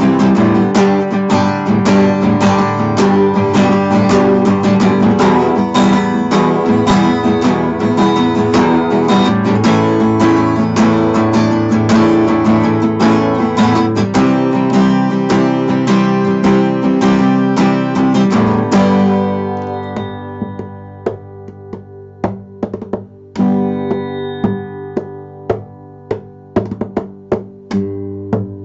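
Steel-string acoustic guitar strummed hard and fast. About two-thirds through it drops to quieter, separate strums about once or twice a second, with one louder chord among them.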